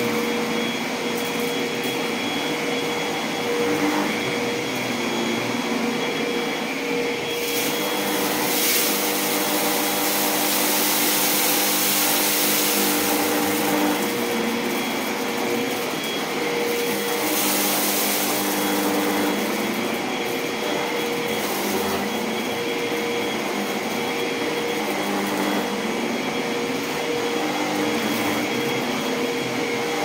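Vorwerk VK135 stick vacuum running steadily with a power head attached, being pushed back and forth over a rug; its motor makes a continuous whine with the airflow rush swelling and easing as the nozzle moves.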